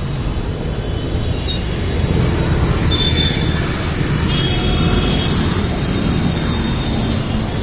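Road traffic noise heard from a moving vehicle: a steady, loud rumble of engines and tyres, with a few short high tones about three to five seconds in.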